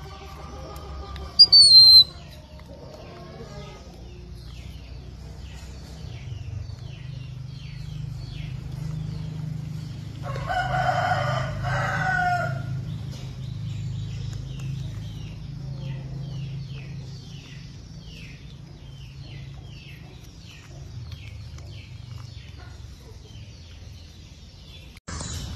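Rooster crowing once, about ten seconds in, over a run of short high chirps, with a brief loud high squeal near the start.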